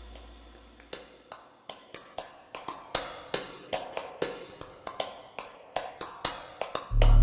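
Countdown timer sound effect: sharp ticks about three a second, slightly uneven, while the previous jingle dies away. Near the end, loud music with a heavy bass comes in.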